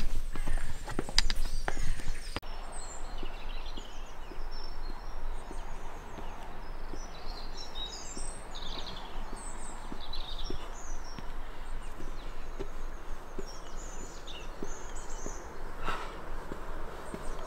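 Small birds chirping and singing in short, scattered phrases over a steady outdoor hush, with faint regular footsteps. The first two seconds hold louder close knocks and rustling, which stop suddenly.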